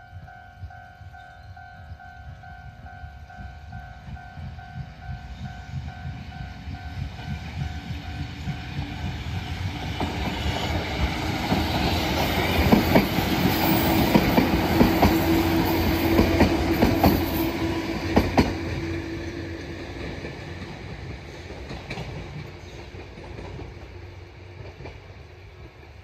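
Japanese level-crossing alarm ringing at a slightly fast beat in the first several seconds, then fading out. A Sanki Railway electric train then passes over the crossing. Its wheels clack over the rail joints, loudest about halfway through, with a steady hum, before the train fades away.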